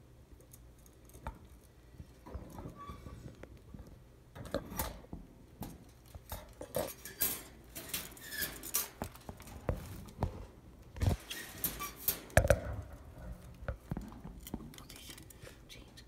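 Budgies clattering at their toys and cage: an irregular run of sharp taps, clicks and knocks with rustling between them, busiest in the middle, with the two loudest knocks late on.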